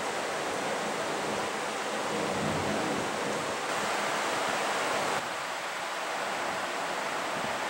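Large pedestal shop fan running: a steady rushing hiss that drops slightly in level and thins in its low end about five seconds in.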